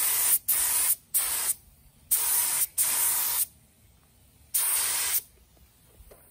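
Air-powered paint spray gun spraying paint onto brake calipers in six short trigger bursts of hiss, each about half a second long, with a longer pause before the last.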